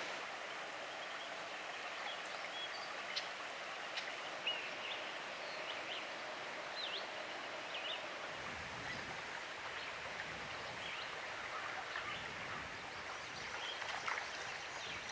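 Shallow creek water running steadily over riffles and rocks, with brief bird chirps scattered throughout.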